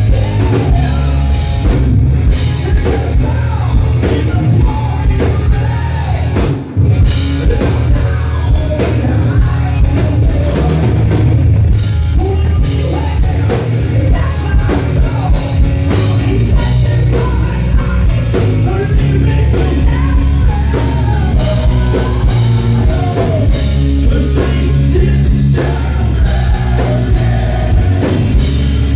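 Hard rock band playing live: loud electric guitar over a drum kit, with a brief drop in the sound about seven seconds in.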